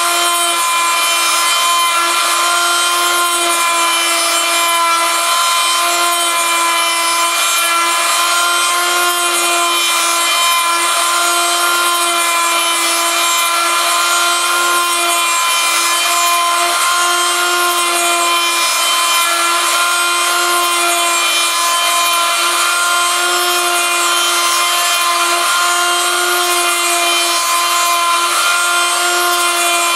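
High-speed rotary tool on a homemade copy router, whining steadily while its bit cuts a slowly turning wooden lure blank, with a rasping cutting noise over the tone.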